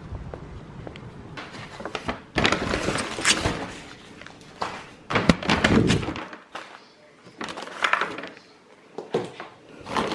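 Rustling and knocks from a paper takeaway bag and drink cups being handled, in several loud bursts with quieter gaps between.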